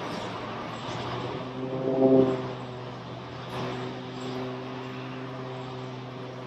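Engine running, a steady hum with pitched tones that swell louder about two seconds in and again more faintly later.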